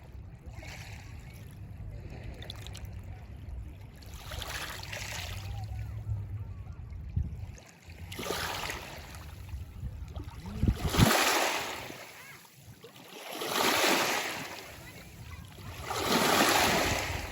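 Waves breaking and washing in, five swells of surf that rise and fade about every three seconds, the last three loudest. A low rumble runs underneath through the first half.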